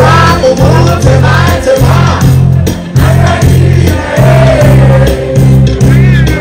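Live concert music played loud through the stage's PA speakers: a heavy, evenly pulsing bass beat with a singer's voice over it.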